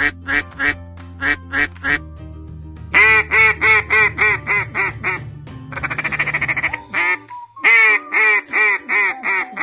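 Duck quacking in several runs of quick, repeated quacks with short pauses between them, over soft background music.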